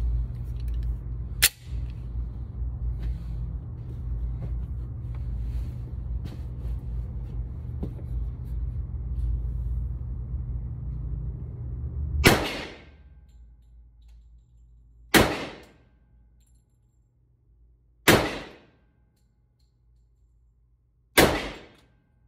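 A .45 ACP 1911 pistol fired slow and deliberate: four loud shots about three seconds apart, starting about twelve seconds in, each with a short echoing tail. Before them there is a steady low rumble and one sharp crack about a second and a half in.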